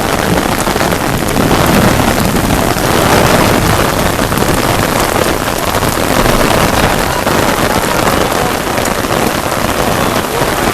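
Heavy rain pouring down in a downpour, a loud, steady hiss of rain on surfaces.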